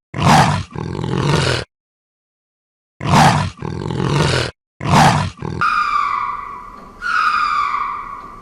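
Leopard calling with its rasping "sawing" call: harsh strokes in pairs, a short one then a longer one, with a pause of over a second after the first two. From about two thirds of the way in, three falling, whining tonal calls follow about a second and a half apart.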